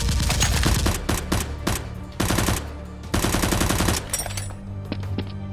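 Automatic gunfire sound effects in three rapid bursts of evenly spaced shots, stopping about four seconds in, over background music.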